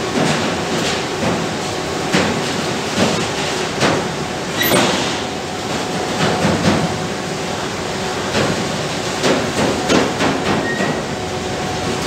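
Freight train of Eanos open wagons rolling past: a steady rumble of wheels on rail, broken by irregular clunks and knocks, about one a second.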